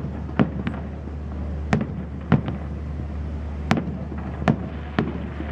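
Fireworks display: about eight sharp bangs of aerial shells bursting at irregular intervals, over a steady low rumble.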